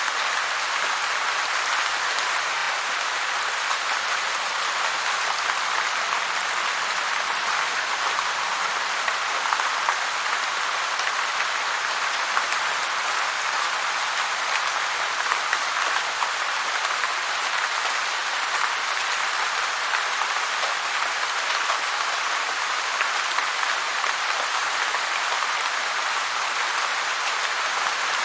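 Heavy rain falling steadily, a dense even hiss of countless drops with a fine crackle, strongest in the upper-middle range and without any rumble.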